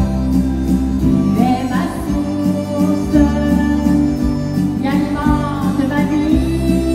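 Live country music played through a PA: a woman singing, with acoustic guitar and harmonica over a steady bass line.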